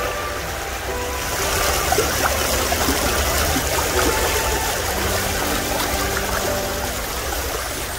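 Shallow stream water rushing and splashing over a stony bed, a steady wash of noise that gets a little louder about a second in.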